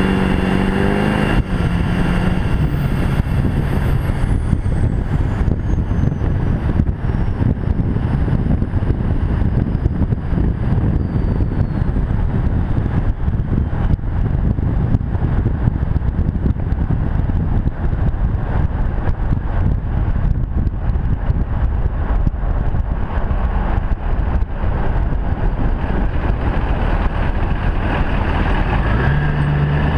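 2001 LB7 Duramax V8 turbodiesel running through a 4-inch straight pipe while driving: revs climb at the start and drop at a gear change about a second and a half in, then a steady low exhaust rumble with a faint high turbo whistle slowly falling, and the revs climb again near the end.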